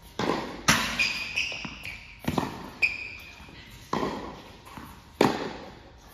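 Tennis rally in a large echoing hall: about six sharp racket hits and ball bounces on the hard court, each ringing on briefly, with a couple of short high squeaks about one and three seconds in.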